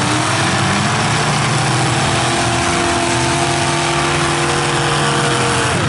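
Several full-size demolition derby cars running hard together on open exhausts: a loud, dense engine din with steady high revs, and one engine's pitch dropping near the end.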